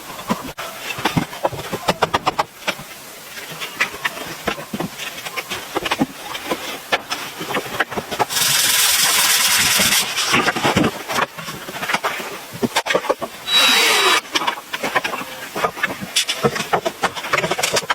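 Building work: a run of irregular knocks and taps, with a loud noisy burst lasting about two seconds near the middle and a shorter one, with a thin whistle in it, a few seconds later. Rapid even ticking comes near the end.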